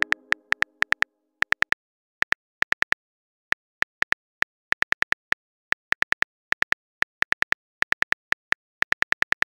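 Phone keyboard typing sound effect: short, sharp taps in irregular bursts of a few keystrokes with brief pauses between them. A low chime from a message notification fades out in the first second.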